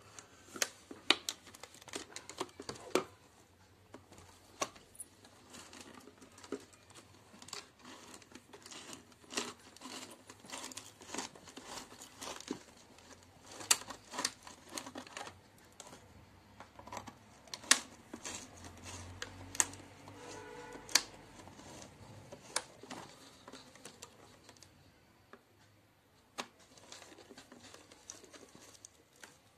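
Thin plastic jar crinkling in the hands while a screwdriver tightens a nut on a bolt through its wall. Irregular sharp clicks and taps of metal on plastic run through it.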